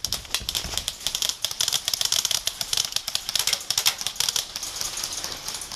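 Airsoft guns firing in rapid bursts, a dense, irregular clatter of sharp clicks that thins out near the end: covering fire.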